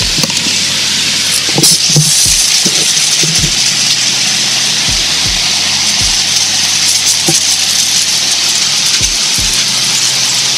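Handheld pump-up garden pressure sprayer misting liquid through its wand nozzle onto fern leaves: a steady hiss of spray, with a few dull low knocks.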